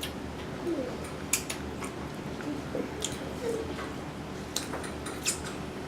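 Close-up eating sounds: soft wet chewing with a few sharp clicks of cutlery on dishes.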